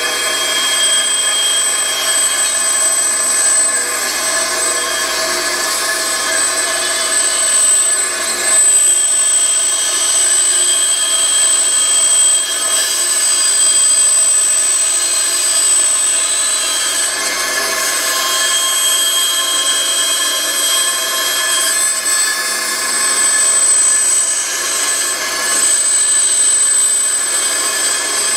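Bandsaw running steadily while a thin hardwood board is fed through the blade, a continuous machine noise with a high, steady whine.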